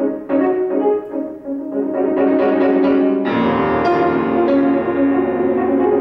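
Solo grand piano playing a classical piece: separate notes and chords for the first few seconds, then about three seconds in a fuller, sustained wash of notes with deep bass.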